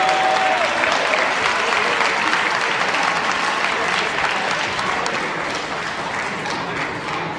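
Spectators applauding, a dense patter of clapping that slowly fades near the end.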